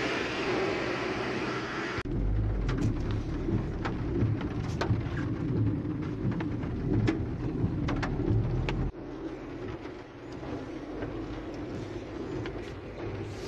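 Car-interior sound in a storm: road and engine rumble with irregular sharp taps of hail and rain striking the car's body and windscreen. A steady rushing noise at the start changes abruptly about two seconds in, and the sound drops quieter about nine seconds in.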